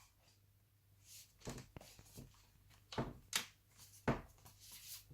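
Battery pack being fitted into an Alienware M17x R2 laptop and the laptop handled: about half a dozen short plastic knocks and clicks, spaced irregularly.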